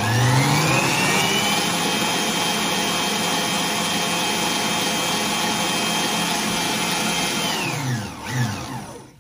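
Electric stand mixer running with its balloon whisk, beating egg yolks into whipped egg whites for a sponge batter. The motor whine climbs as it speeds up over the first second or two, holds steady, then winds down and stops near the end.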